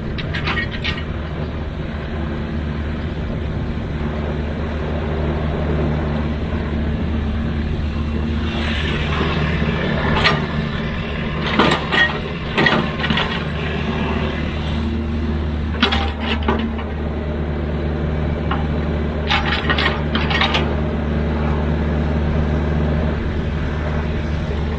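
Excavator's diesel engine running steadily while it digs, with metallic clanks and knocks from the bucket and boom at several points: a cluster about ten to thirteen seconds in, one at about sixteen seconds, and another cluster around twenty seconds.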